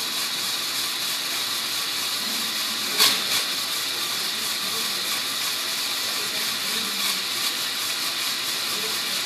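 LEGO Technic model car's electric motors and gear drivetrain running steadily, spinning its wheels freely off the ground with an even whirring gear noise; a sharp click about three seconds in.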